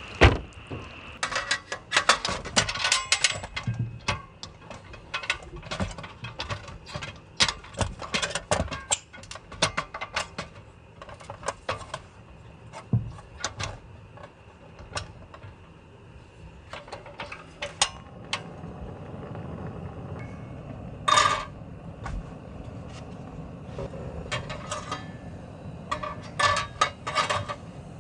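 Irregular clicks, clacks and knocks of small hard objects being handled, with dense runs of clicking and one louder clack about three quarters of the way in.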